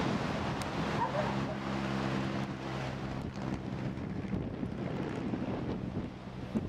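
Wind buffeting the microphone over the wash of breaking surf, with a steady low engine hum, like a boat motor, in the first half that then fades out.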